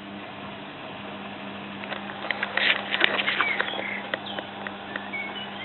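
Washing machine running with a steady low hum that starts suddenly, with irregular clicks, rattles and short squeaks over it, busiest about two to four seconds in.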